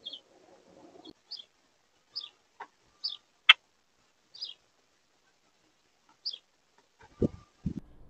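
Short, high bird chirps, one every second or so, with a single sharp click about three and a half seconds in. A few low thumps near the end.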